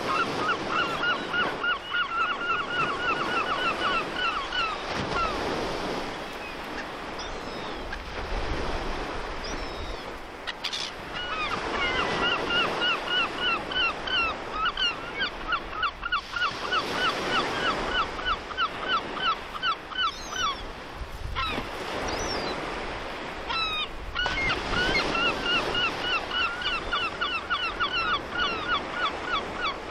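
Sea surf and wind noise, with three bouts of rapid, evenly repeated high calls, each lasting a few seconds.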